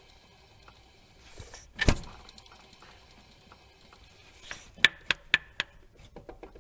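Renault Duster H4M alternator pulley spun by hand with the belt off to check its bearings. Brief faint whooshes come with sharp metallic clicks: one loud click about two seconds in and a quick run of four or five clicks about five seconds in. The bearing gives only a slight rustle, which the mechanic can hear only through a screwdriver.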